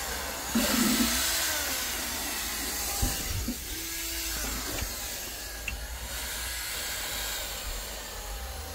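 Small electric motor of a cordless power scrubber running steadily, its pitch wavering as the brush is pressed onto the car's floor carpet, over a steady hiss, with a few light knocks.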